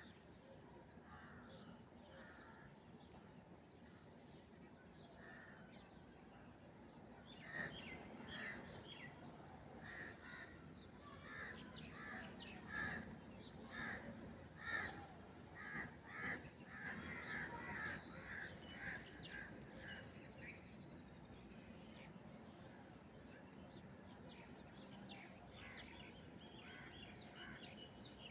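Rainforest birds calling, faintly at first, then a run of short, harsh, repeated calls, about two a second, from about eight seconds in until about twenty seconds, before fading back to scattered faint calls.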